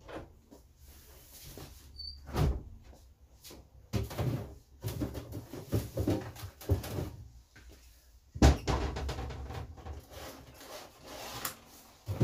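A series of irregular knocks and thumps of things being handled, like cupboard doors and objects being moved, with the loudest knock about eight and a half seconds in.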